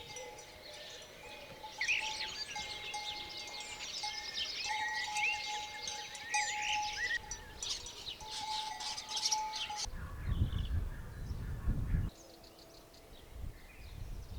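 Small songbirds chirping and twittering in a busy chorus of quick notes, with one thin held tone under them; the birdsong cuts off abruptly about ten seconds in. Low rumbling bursts follow, twice.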